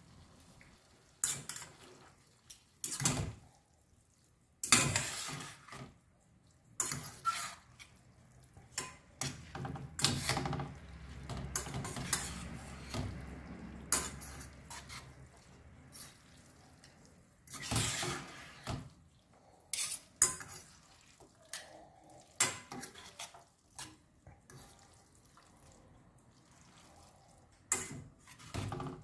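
A metal fork scraping and clinking against a stainless steel frying pan as spaghetti is tossed and turned in its tomato sauce, in irregular spells with short quiet gaps between.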